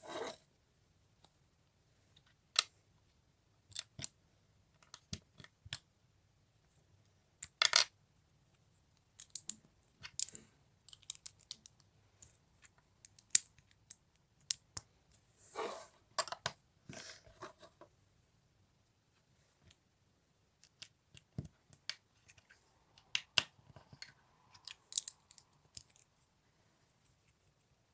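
Plastic building bricks being handled and pressed together: scattered sharp clicks and short rustles of pieces being sorted, with pauses between them.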